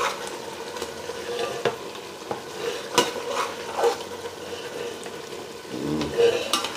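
Steel ladle clinking and scraping against a stainless steel pot and plate as pieces of chicken masala are scooped out, with scattered sharp knocks over a steady sizzling hiss.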